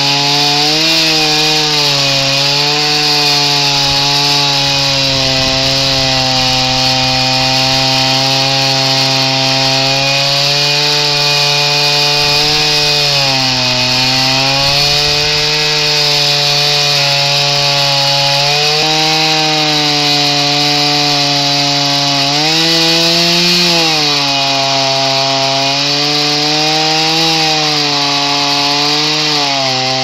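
Two-stroke chainsaw held at full throttle, ripping lengthwise along a log to mill lumber. The steady engine note sags and recovers a few times as the chain loads up in the cut.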